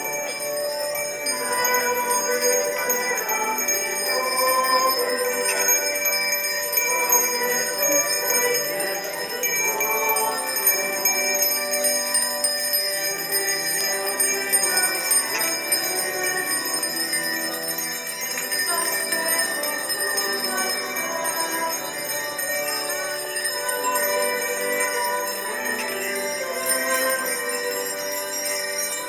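Bells ringing steadily, with a hymn-like melody running underneath.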